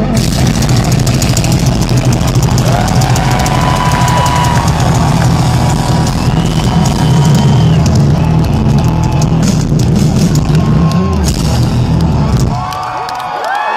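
Live heavy rock band through a large outdoor PA, playing a bass-heavy instrumental with drums, loud and heard from within the crowd, with crowd shouts over it. About twelve and a half seconds in the music stops and the crowd cheers and shouts.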